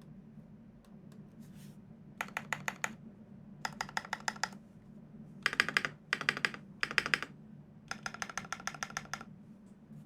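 Typing on a Dolumina65 custom mechanical keyboard with lubed Everglide Dark Jade Black switches on an aluminium plate, fitted with GMK keycaps. After a near-quiet start, the keystrokes come in six quick bursts with short pauses between them, the loudest bursts in the middle. A low steady hum runs underneath.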